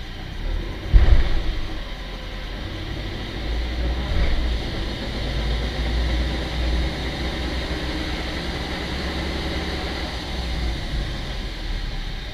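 Subaru Forester's EJ205 flat-four engine and drivetrain running while driving, with a low rumble that grows louder from a few seconds in, and a loud thump about a second in. Through it comes the knock the owner hears from low in the middle of the engine bay under gentle acceleration, a knock that softens as speed rises.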